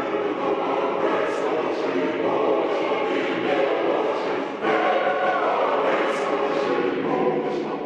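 Choir singing, with voices holding long notes and a shift in the chord about two-thirds of the way through.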